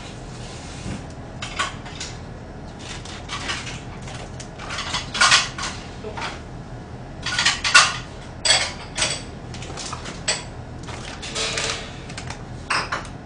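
Plastic cling wrap being peeled and crumpled off takeout food containers, crinkling in irregular bursts, with bowls and dishes clinking on the table. The loudest burst comes just past the middle.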